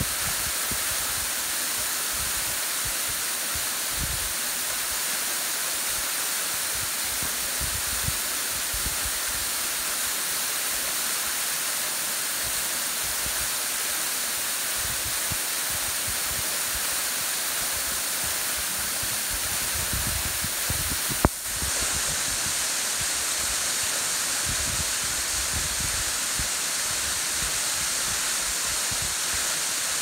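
Waterfall spilling in thin streams down a rock face into a shallow pool, a steady rush of falling and splashing water, with gusts of wind buffeting the microphone. A single sharp click about two-thirds of the way through.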